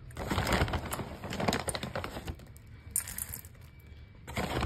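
Dry cat kibble clicking and crunching as a young cat eats from a metal bowl, a quick run of small sharp clicks that quietens for a second or two and picks up again near the end.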